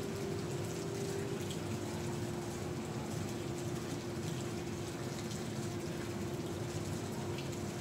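Steady low hum from a machine over a constant background hiss, unchanging throughout.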